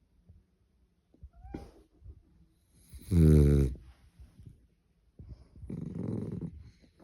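Dog snoring in its sleep: a loud, low, drawn-out snore about three seconds in, then a quieter, rasping snore near the end.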